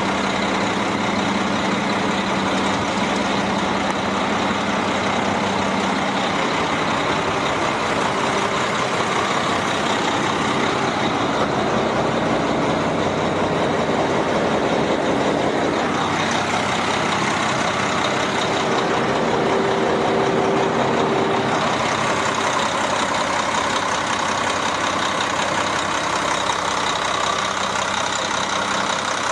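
Cummins ISM inline-six diesel engine of a concrete mixer truck running steadily, with no revving.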